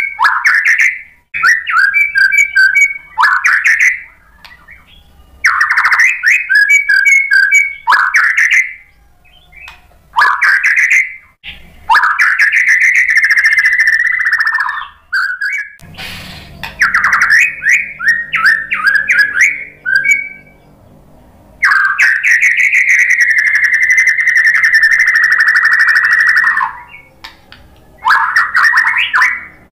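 White-rumped shama (murai batu) singing loudly in separate phrases of clear whistled notes and quick repeated notes, with short pauses between them. Two phrases run unbroken for longer, about three and about five seconds.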